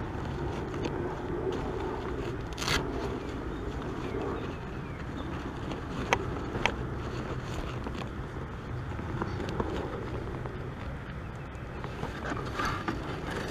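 Steady low background rumble on the water, broken by a few sharp clicks and knocks from gear being handled on a plastic fishing kayak, the loudest about three seconds in.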